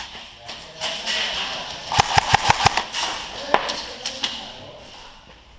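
Airsoft guns firing, with a rapid burst of about six shots about two seconds in and single shots scattered before and after it.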